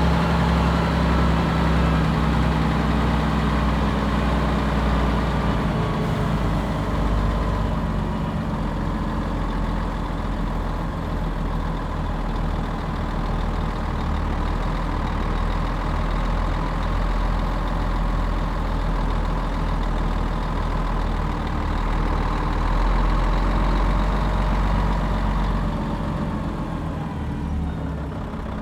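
Bus engine running with a steady low drone. Its note shifts about six seconds in, and it drops and quietens near the end.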